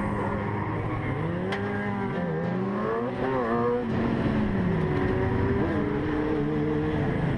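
A motor vehicle's engine revving, its pitch rising and falling several times.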